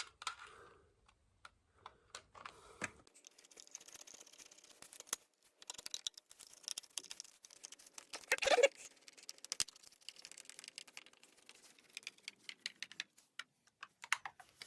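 Faint, irregular small clicks and rattles of a doorbell module and its faceplate being handled and seated into a shallow 25mm metal back box, with one louder scrape a little past the middle.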